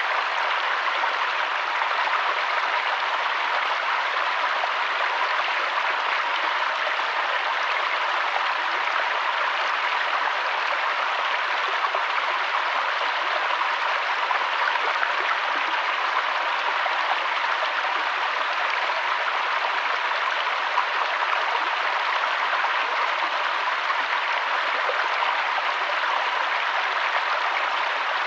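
Mountain waterfall: a steady, even rush of falling water that does not change.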